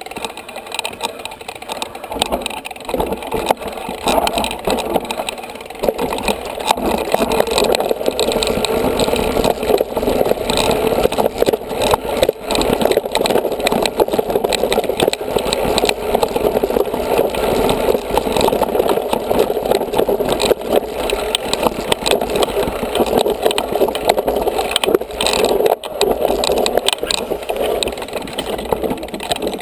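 Mountain bike rattling and clattering over a rough forest singletrack: a steady rumbling noise laced with many small knocks and clicks.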